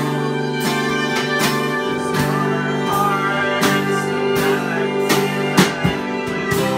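Small folk band playing live: two bowed fiddles over acoustic guitar, keyboard and drums, the drums keeping a steady, unhurried beat.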